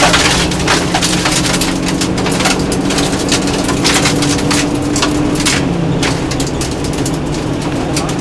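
Onboard a 1600 cc naturally aspirated two-wheel-drive rally car at speed on gravel: the engine running hard under a constant stream of stones and grit rattling and pinging against the underbody and wheel arches. The rattling is densest in the first few seconds and the engine note eases about six seconds in.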